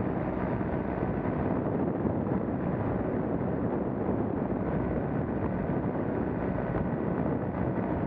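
Paramotor engine running steadily in flight, under heavy wind noise buffeting the microphone.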